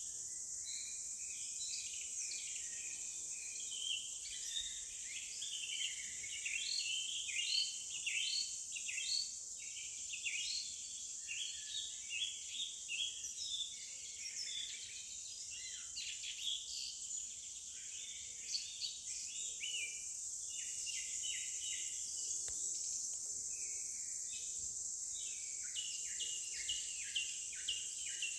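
Forest ambience: many birds chirping and calling in quick, overlapping phrases over a steady high-pitched insect drone.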